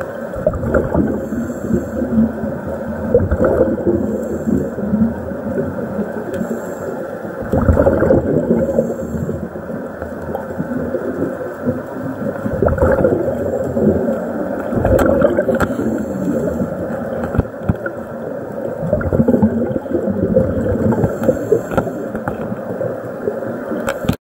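Muffled underwater churning and bubbling, heard through a camera's waterproof housing, swelling louder every few seconds with small crackles.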